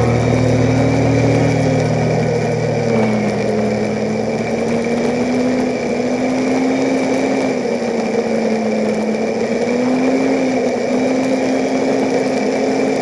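ATV engine running under way at a fairly steady speed, its pitch drifting gently up and down with the throttle.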